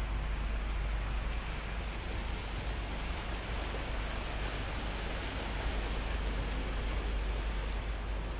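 A car driving through floodwater covering the road, its tyres throwing up spray in a steady rushing splash that swells slightly midway through.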